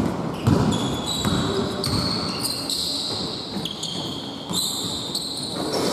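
A basketball bounces on an indoor court, a few thuds in the first two seconds, while sneakers squeak on the floor in short high shifting squeals.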